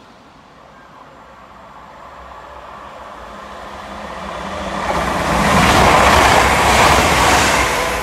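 A Class 323 electric multiple unit approaching and running close past, the noise of its wheels on the rails swelling steadily to a peak about six to seven seconds in, then easing off near the end.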